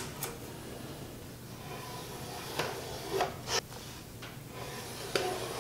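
Faint handling sounds of marking out on a walnut board: a few soft taps and short scrapes as a metal square and pencil are set down and moved on the wood, over quiet room tone.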